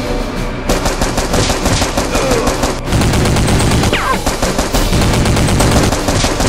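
Rapid automatic gunfire sound effect in bursts, starting under a second in and continuing, laid over action music.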